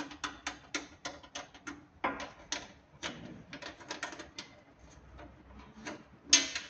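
Irregular clicks and rattles of a cable with a crimped ring terminal being worked through a plastic cable gland on a PV combiner box, with a louder clatter near the end.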